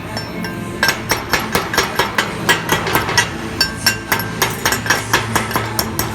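A hammer striking metal rapidly, about four blows a second with a short metallic ring to each, starting about a second in.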